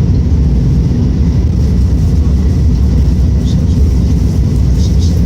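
Tokaido Shinkansen high-speed train running, heard inside the passenger cabin as a steady, loud low rumble. A few faint high ticks come near the end.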